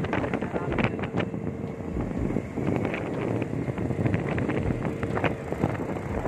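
Wind rushing over the microphone of a phone carried on a moving KTM Duke 125 motorcycle, with the bike's engine and road noise running steadily underneath.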